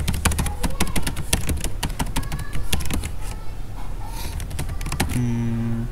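Typing on a computer keyboard: a rapid run of key clicks that thins out after about three seconds.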